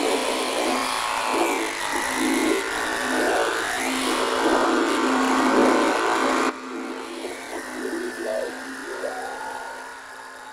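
Sound-designed buzzing of a fly: a steady low buzz with wavering, gliding noises layered over it. The upper layers cut off suddenly about two-thirds of the way through, and the buzz fades away near the end.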